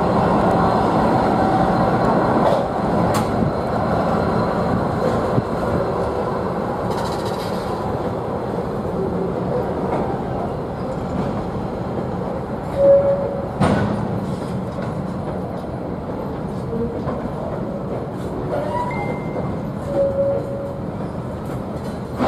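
Freight train wagons rolling past, wheels running steadily on the rails with a few brief wheel squeals and one sharper knock about two-thirds through.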